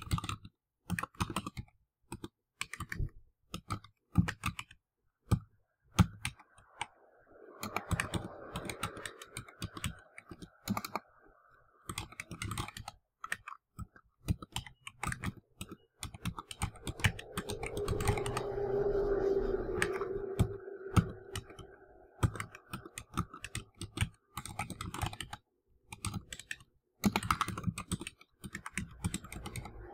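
Computer keyboard being typed on: irregular runs of key clicks with short pauses between words. A low background rumble swells and fades in the middle, under the keystrokes.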